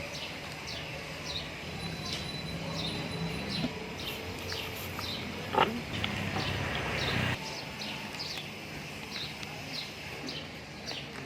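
Small bird chirping over and over, short high descending chirps about twice a second. A low rumble runs under it and cuts off suddenly about seven seconds in, and a single sharp click stands out about halfway through.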